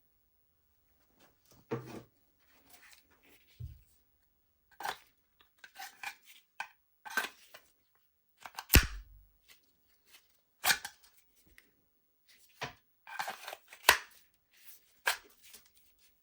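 A fixed-blade knife and its packaging being handled: irregular rustling and scraping with sharp taps, and one heavier knock about halfway through.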